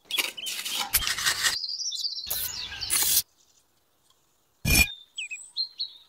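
A tiny trowel scraping and spreading wet cement mortar on miniature bricks: two scrapes in the first half, then a single sharp knock a little before five seconds. Bird chirps are heard near the end.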